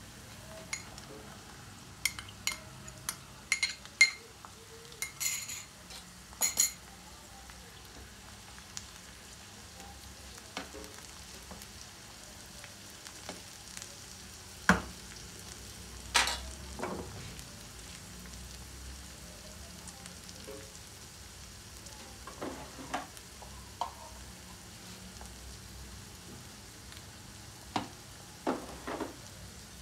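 Potato, onion and cabbage frying with a faint steady sizzle in a non-stick pan, while a metal spatula stirs them, scraping and knocking on the pan in clusters of sharp taps, several close together in the first few seconds, a few more in the middle and near the end.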